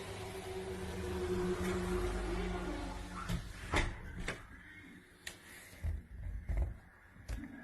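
A low hum, then from about three seconds in a run of separate knocks and clicks, like a door or window being handled. The alarm itself is not sounding.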